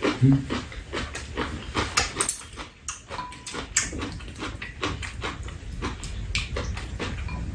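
Close-up eating sounds: chewing and slurping of stew, with many short clicks of chopsticks and spoons against bowls.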